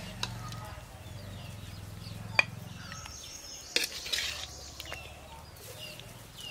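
Metal spatula scraping through thick pickle in an iron wok, with two sharp clinks of metal on the pan, the second followed by a short scrape. Birds chirp in the background, and a low hum runs through the first half.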